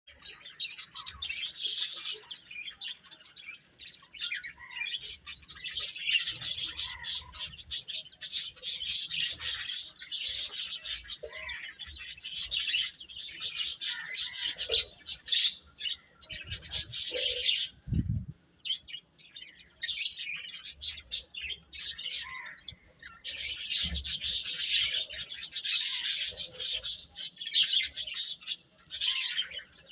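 A group of baby chickens (chicks) peeping constantly, many high-pitched chirps overlapping in long runs with a few brief lulls. One low thump sounds a little past the middle.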